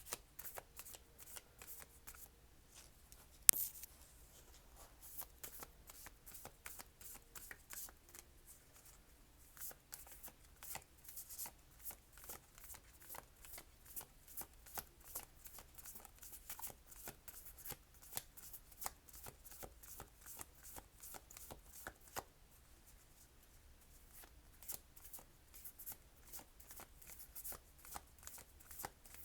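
A stiff, little-used Starseed oracle deck being shuffled by hand: a long run of soft card flicks and riffles, with one sharp snap about three and a half seconds in.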